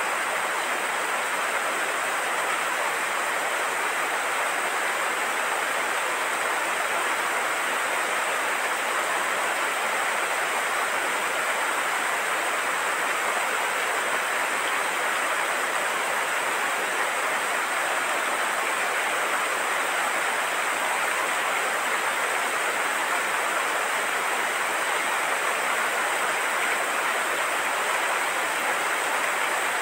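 Steady rain, an even, unbroken hiss that holds the same level throughout.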